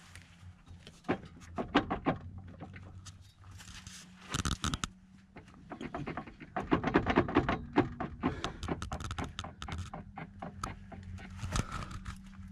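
Irregular knocks, clicks and scrapes as hands and a handheld camera bump against the underside of a Jeep Wrangler TJ's front axle and brush through grass, busiest about halfway through. A steady low hum runs beneath.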